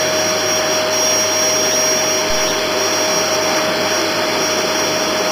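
Vacuum cleaner running steadily, a constant motor whine over an even rush of air.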